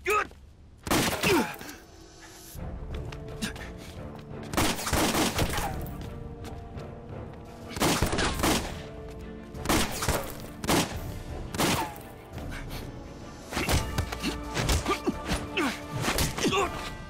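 Pistol shots fired one at a time, about ten of them spaced a second or more apart, over steady dramatic background music. Near the end the strikes come quickly one after another, the hits and thuds of a close fistfight.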